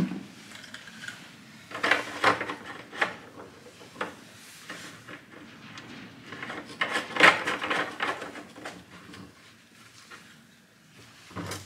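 Plastic fuel jugs being handled: knocks and scrapes as a plastic gas jug is set down in a cardboard box and the caps on a Husqvarna combi gas and oil can are worked loose. The clatter comes in two main bunches, about two seconds in and again about seven seconds in.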